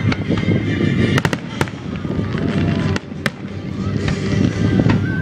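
Aerial fireworks shells bursting overhead: a string of sharp bangs, with a quick cluster just over a second in and a loud single bang a little past three seconds.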